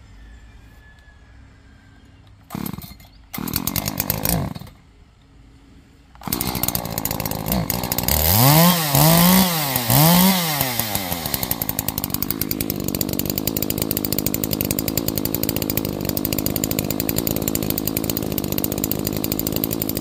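Gasoline chainsaw: after two short bursts of noise a few seconds in, it starts running, revs up and down twice, then settles into a steady high-speed run.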